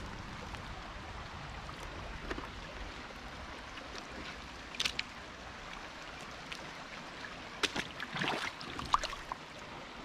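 Shallow river water running and trickling steadily, with a few short faint clicks about halfway through and again near the end.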